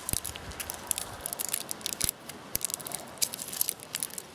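Thin protective plastic film being peeled off a bicycle puncture-repair patch: a run of small, irregular crackles and clicks.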